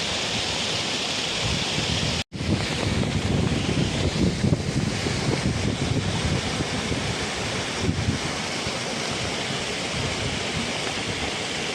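Rushing water of a waterfall mixed with wind buffeting the phone's microphone. The sound cuts out for an instant about two seconds in, and after that the gusty wind rumble is stronger.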